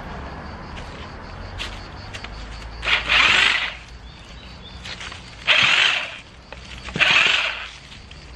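Corded electric hedge trimmer running, with three short, loud bursts as its blades cut through weeds and vine stems.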